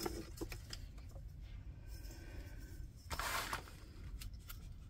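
Hands handling a diamond painting canvas under its plastic cover sheet while measuring it: quiet rubbing and small clicks, with a brief louder rustle about three seconds in.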